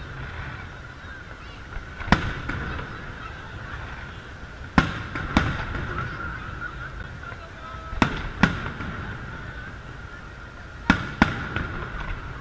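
Aerial firework shells bursting overhead: seven sharp booms, mostly in pairs about three seconds apart, each with a short echoing tail, over a steady high-pitched drone.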